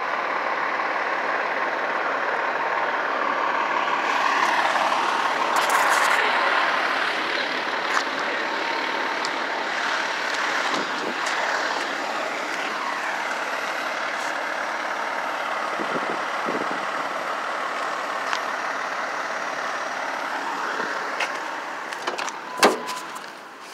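Steady loud running of fire apparatus on scene, a truck's engine and pump noise. Near the end it drops away and a car door latch gives a sharp click.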